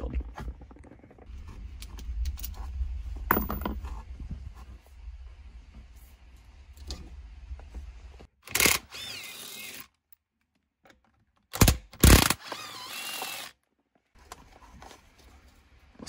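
Hand tools and metal parts clicking and clinking as the bolts of a manual-transmission shifter are undone, with a low handling rumble. It comes in short separate bursts with abrupt cuts and gaps of silence between them.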